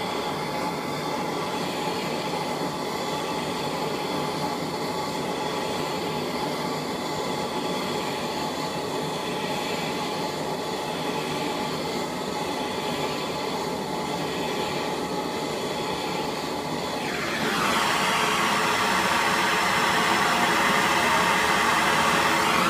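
Hose-fed gas torch burning steadily with a rushing noise as it heats the Loctite-locked clutch hub nut to about 500°F to release it. The noise gets louder and brighter near the end.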